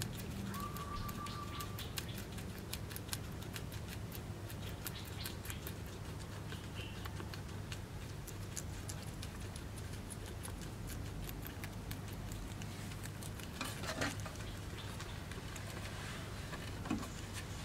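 Guinea pig chewing cucumber: a quick, continuous run of small, crisp crunching clicks, with two louder crunches in the last few seconds. A steady low hum lies underneath.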